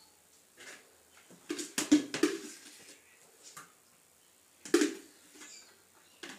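Plastic kitchenware being handled while noodles are served: a quick run of knocks and clatters about two seconds in and another single knock near five seconds, with light taps between.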